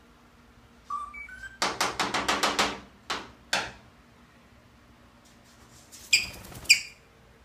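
A pet green parrot calling: a short rising whistle about a second in, then a quick string of harsh squawks and two more single ones, and two loud sharp screeches about six seconds in.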